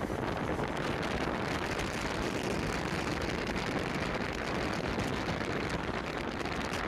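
Steady road and wind noise of a moving car, picked up by a phone held at the open window, with the wind buffeting the microphone.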